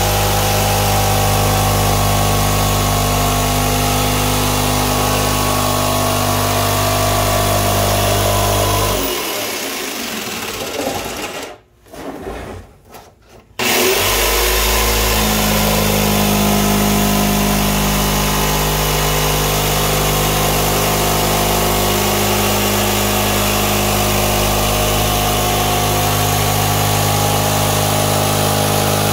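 Corded jigsaw with a coarse-toothed blade cutting through the wall of a plastic 55-gallon barrel, its motor running steadily. About nine seconds in it stops for a few seconds, then starts again and cuts on.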